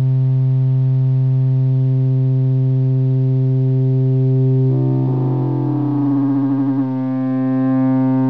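LushOne single-board synthesizer holding one steady low note through its filter, with the filter resonance being turned up. About halfway through a resonant peak comes in and slides down through the note's overtones and back up, adding a buzzy, ringing richness to the tone.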